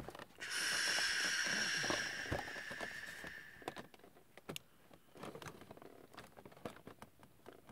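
A steady hiss lasts about three seconds and fades away, followed by scattered faint clicks and taps.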